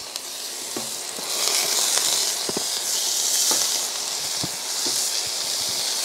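Raw beef steaks sizzling on a large hot iron griddle greased with beef tallow. The sizzle grows louder about a second in as more steaks are laid down, with a few light clicks.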